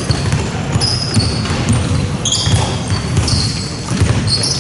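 Basketball game play: a ball bouncing on the court, with short high-pitched squeaks of sneakers on the floor scattered through it.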